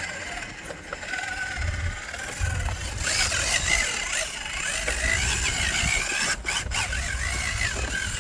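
Electric motor of a 1/10-scale RC rock crawler whining, its pitch rising and falling with the throttle from about three seconds in, over a low rumble of wind on the microphone.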